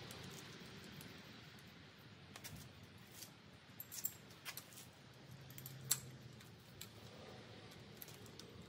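Faint, scattered metallic clicks and clinks of steel push rods being dropped through the cylinder head into the hydraulic roller lifters and knocking against the rocker studs, with one sharper clink past the middle.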